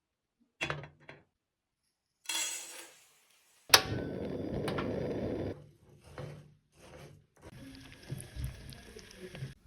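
Kitchen handling sounds: light clinks and knocks of utensils against dishes and glass. A sharp knock comes about four seconds in, followed by about two seconds of steady rushing noise, then scattered soft clicks and rubbing.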